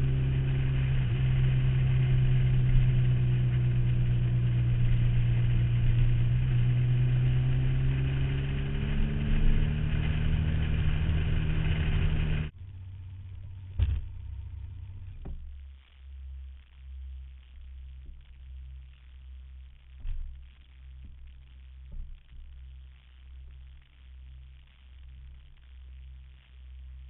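Motorcycle engine running at road speed, heard from a saddlebag-mounted camera with a high-pitched wind rustle, its pitch easing and climbing with the throttle through the curves. About halfway through, the sound drops off suddenly to a low, quieter running with slow, regular swells, broken by a single knock.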